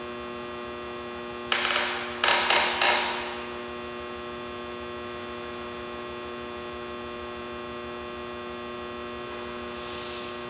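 Steady electrical hum, with four short breathy rushes of air about one and a half to three seconds in as a person sips whisky and breathes out.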